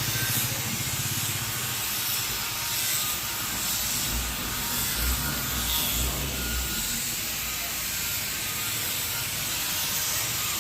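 Steady hissing machine noise, with a low rumbling pulse at the start and a few low thumps around the middle.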